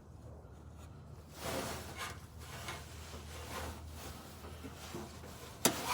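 Hands rubbing and scraping plastic parts as a bulb is worked into a car's side marker light socket, with a sharp click near the end.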